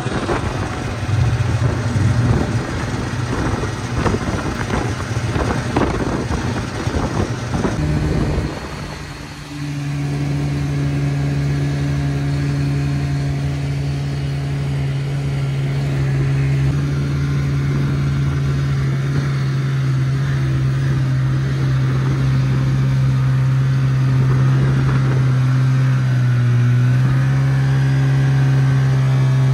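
Snowmobile engine running under way. For the first eight seconds or so the sound is rough and noisy; after that it settles into a steady drone with a clear pitch, which dips and rises briefly near the end.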